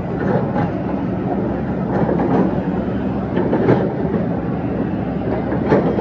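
Heavy engine machinery running steadily with a low rumble, with irregular metallic clanks and knocks on top: road-construction equipment at work.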